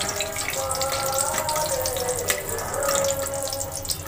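Gram-flour-battered pumpkin slices deep-frying in hot oil in a kadhai: a steady sizzling crackle full of small pops.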